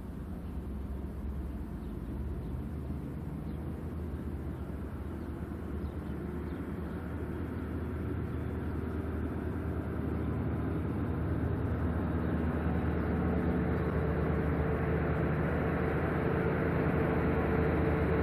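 BNSF diesel locomotive approaching at low speed, its diesel engine running steadily and growing gradually louder as it nears. A steady tone joins the engine sound about two-thirds of the way through.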